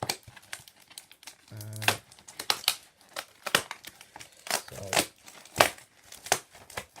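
Packaging crinkling and rustling as it is handled, in an irregular string of sharp crackles.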